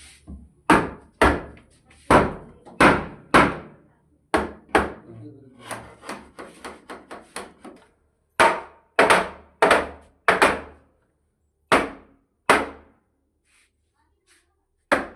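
Hammer blows on wood, each a sharp strike with a short ringing tail. Heavy strikes come about two a second, then a run of lighter, quicker taps in the middle, then more heavy strikes with growing pauses between them.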